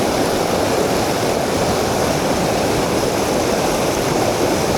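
Mountain stream water rushing, a steady unbroken rush.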